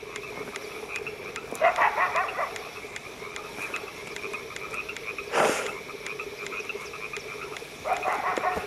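A chorus of frogs calling steadily, with louder croaking calls about two seconds in and again near the end. A short noisy burst comes a little past halfway.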